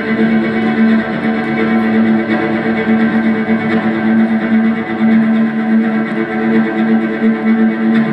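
Instrumental music led by bowed strings, violin and cello, holding long sustained notes over a steady low drone.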